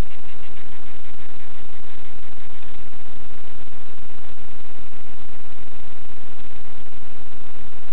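Loud steady hiss and static with a faint electrical buzz, from a camera microphone recording an almost silent night scene.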